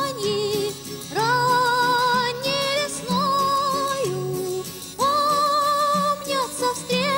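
A young woman singing a folk song in a high voice, holding several long notes with vibrato, over a plucked string accompaniment.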